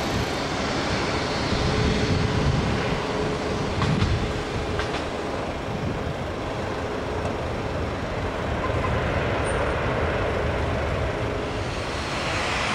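Boeing 737-800 airliner landing: a steady rumble from its CFM56 jet engines and wheels as it touches down and rolls out along the runway.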